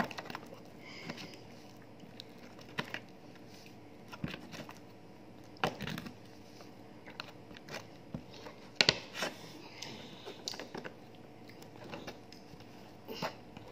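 A plastic spoon stirring and scraping sticky slime in a small plastic pot: irregular soft scrapes, squishes and clicks, with a sharper click about nine seconds in.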